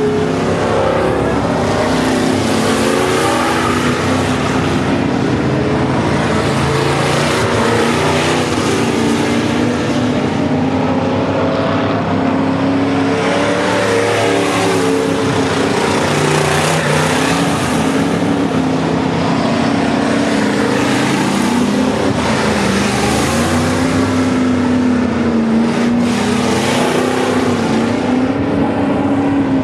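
Several V8 dirt-track stock cars racing together, their engines running loud and continuous. The pitch rises and falls as the drivers lift and accelerate through the turns.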